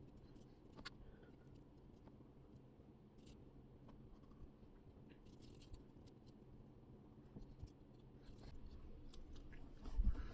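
Faint scattered ticks and rustles of small paper-art puzzle pieces being handled and fitted together, with a sharp click about a second in and a louder knock near the end.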